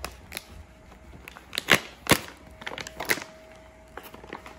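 Crinkling and crackling of a plastic dog-treat pouch being picked up and handled, with two sharper crackles about two seconds in.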